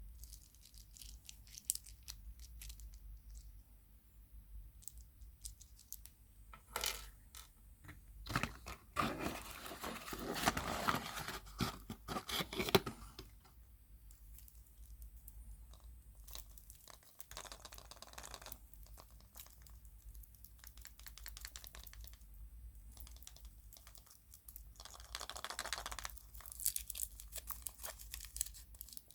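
Foil wrapper of a chocolate surprise egg being torn and crinkled in several spells, the longest about nine to thirteen seconds in, with scattered small clicks and taps between.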